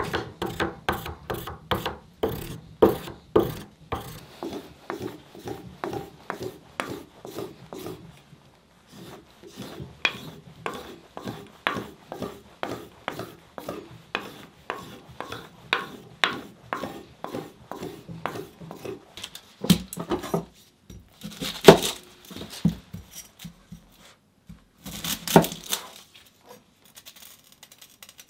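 Steel drawknife blade being sharpened by hand: steady rhythmic scraping strokes of a sharpener along the edge, about two a second, with a short pause partway. Near the end come a few separate loud knocks and clatters of kitchen things.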